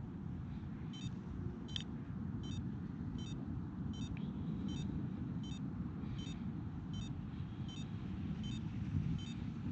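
AirLeash wrist remote beeping, a short high beep repeated a little under twice a second: the calibration tone telling the user to hold the remote steady and wait for the tone to change. A steady low rumble of wind on the microphone runs under it.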